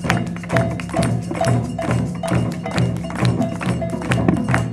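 Hand-percussion ensemble playing a steady Latin groove: cajón and drum strokes about two to three a second, with cowbell, maracas and a metal güira scraper over them.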